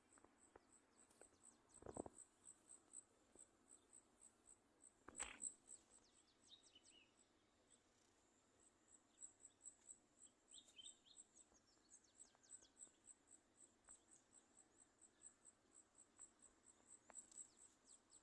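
Faint insect chirping, a steady high-pitched pulse about three times a second, with a few short bird chirps and two soft thumps early on.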